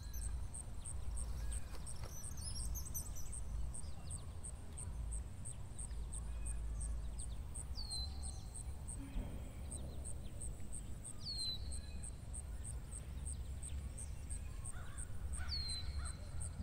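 Morning birdsong ambience: a high, even chirp repeating about three times a second, with a descending whistled call every few seconds, over a low steady rumble.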